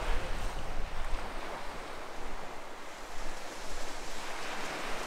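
Ocean surf washing steadily, with wind rumbling over the microphone.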